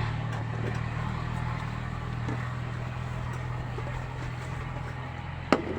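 A motor vehicle's engine runs steadily with a low drone that slowly fades, with a sharp click about five and a half seconds in.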